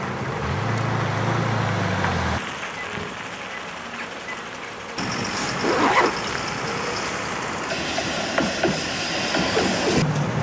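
Street noise at tram stops in several short cuts: a steady low vehicle hum at first, then passing traffic, then a new 71-623 tram standing at the stop with a steady high whine and a few knocks.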